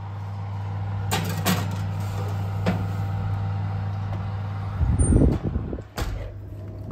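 Metal baking tin set onto an oven's wire rack with a few light clinks, over a steady low hum. The oven door then swings shut with a heavy thump and a sharp clunk near the end.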